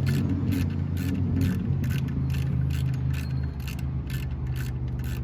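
Ratchet wrench clicking in an even run, about three clicks a second, as a bolt is turned, over a steady low hum.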